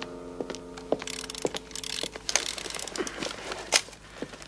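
Clicking and rattling of a hand-worked mechanism, over a steady hum that stops about two seconds in, with a rustling hiss in the middle.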